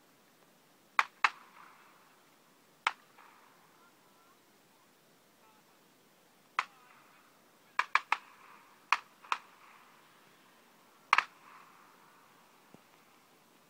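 Shotgun shots at a clay shoot: about eleven sharp cracks in pairs and quick clusters, each followed by a brief echo.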